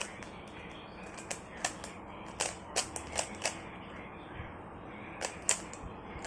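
Irregular sharp plastic clicks from a Rubik's cube being turned and handled. There is a quick run of them in the first half, a pause, then a few more near the end.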